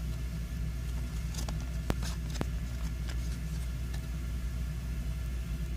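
A few faint clicks and light rustles of a cardboard trading card being turned over in the fingers, over a steady low background hum.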